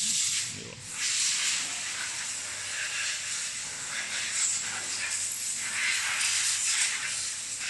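Steady hissing noise with a faint steady hum underneath.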